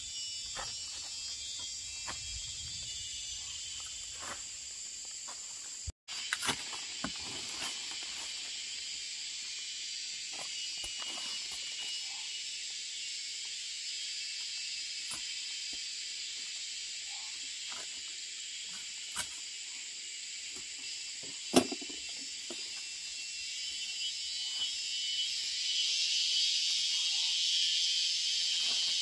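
Steady high-pitched chorus of insects, with scattered faint clicks and knocks; it drops out for a moment about six seconds in and grows louder near the end.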